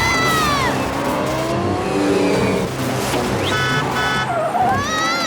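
Cartoon vehicle sound effects: an engine running with swooping tyre squeals, and a short electronic beeping about three and a half seconds in.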